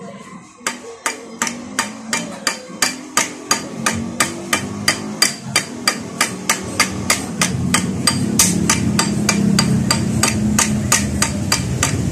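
Hammer striking a steel bar against a motorcycle clutch housing in quick, even taps, about three to four a second, each with a sharp metallic ring: riveting the rubber clutch dampers into a Yamaha Sniper 150 clutch housing. A low hum rises beneath the taps about two-thirds of the way through.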